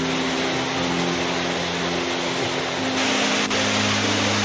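Waterfall rushing into its plunge pool: a steady, dense roar of falling water. Slow, held background music notes run underneath, changing pitch every second or so.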